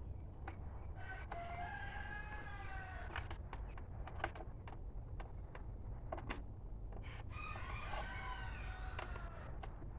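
A rooster crowing twice, each crow lasting about two seconds, with scattered sharp clicks and knocks around it.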